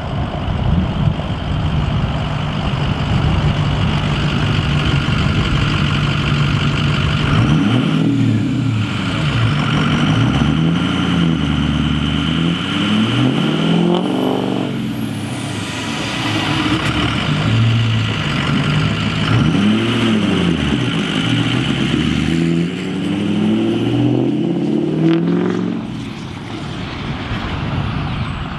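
Ford 6.0 Power Stroke turbo-diesel V8 truck driven hard past, its engine pitch climbing and dropping again and again. A high whine sweeps up and then down about halfway through.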